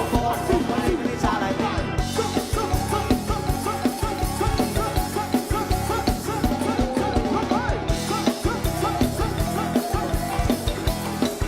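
Background music: a song with a singing voice over a steady drum beat and guitar.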